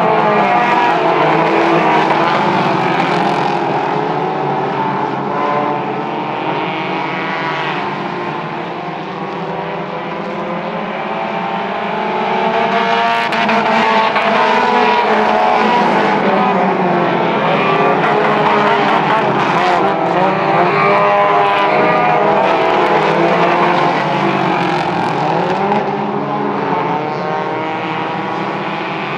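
Mini stock race cars' engines running hard on a dirt oval, several at once, their pitch rising and falling as they rev up and ease off.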